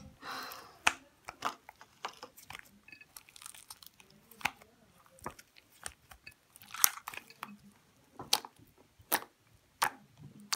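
Pink slime being kneaded and pressed with the fingers, giving irregular sharp wet clicks and pops, with a longer squelch right at the start and another about two-thirds through.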